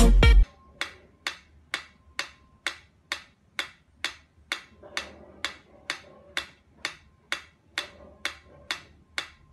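Mechanical pyramid metronome ticking steadily, a little more than two sharp clicks a second.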